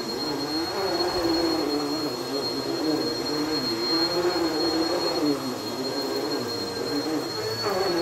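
Bagless upright vacuum cleaner running over a rug, its motor tone rising and falling slightly as it moves, with a thin steady high whine above it.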